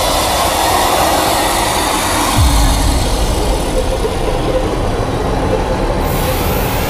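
Horror-film sound design: a loud, dense rumbling noise, with a deep low boom about two and a half seconds in and a high whine that begins rising near the end.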